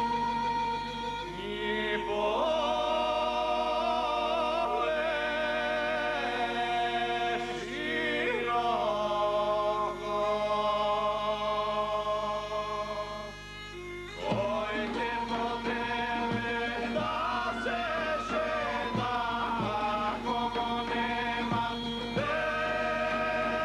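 Male voices singing a slow Macedonian folk song in long, wavering held notes, with folk-band accompaniment. About 14 s in, a regular drum beat comes in under the voices and band.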